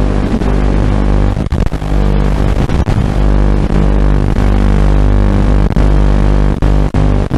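Loud, steady electronic buzz with evenly spaced pitches that do not change as the micro racing drone banks and throttles, broken by several brief cut-outs: interference on the audio of an analog FPV video feed.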